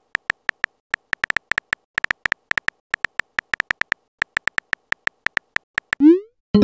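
Texting-app keyboard sound effect: a quick run of short, high ticks, one per typed letter, several a second with a couple of short pauses. About six seconds in, a rising swoop begins as the message is sent.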